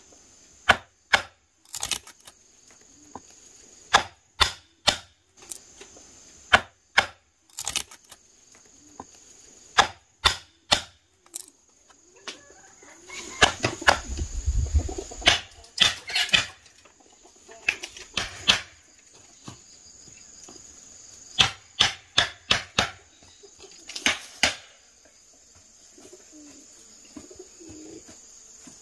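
Sharp chopping strokes at an irregular pace, some in quick runs of three or four, with a busier scuffling stretch about halfway through. A steady high-pitched insect drone runs underneath.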